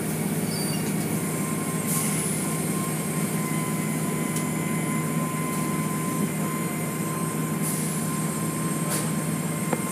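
Automatic tunnel car wash running: water spraying and soapy cloth curtains and brushes sweeping over the car, over a steady low machinery hum with a faint high whine. A few brief sharp ticks stand out, about two seconds in and near the end.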